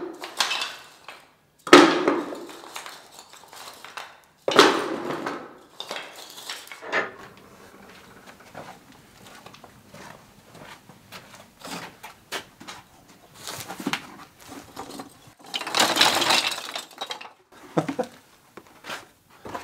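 Irregular knocks and clatters of hard objects being handled: sharp strikes about two seconds and four and a half seconds in, scattered small clicks between, and a longer, louder clatter near the end.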